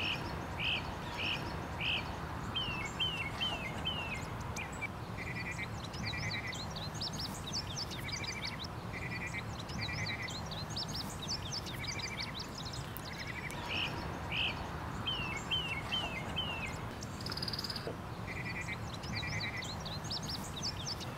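Outdoor ambience of birds calling: repeated short chirps and downslurred whistles, with short buzzy pulsed trills. A steady low hum runs underneath.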